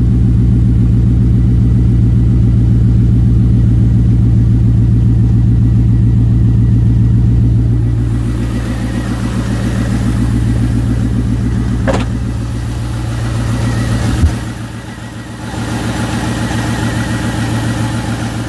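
C5 Corvette's LS1 V8 idling steadily, heard first from the driver's seat and then from outside at the open engine bay. A single sharp knock comes about 14 seconds in.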